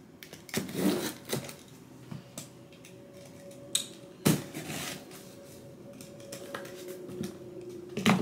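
Product packaging being handled and opened by hand: scattered clicks, knocks and rustles, with louder knocks about a second in, about four seconds in and near the end.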